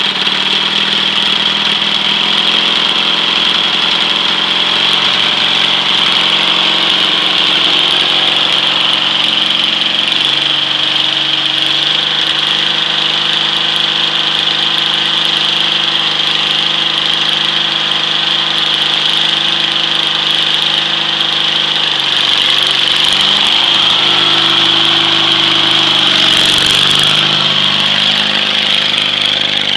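Small engine of a stripped-down riding lawn tractor running steadily, with a steady high whine over it. The engine note shifts about a third of the way in and changes again near the end as the tractor pulls away.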